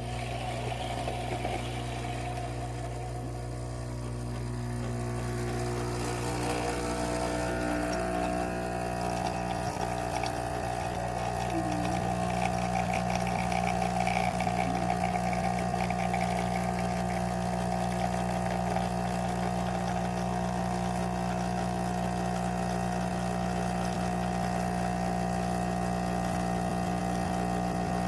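Baratza Encore ESP electric burr coffee grinder running, a steady motor hum with a rougher grinding noise over it, growing a little louder over the first dozen seconds and then holding even.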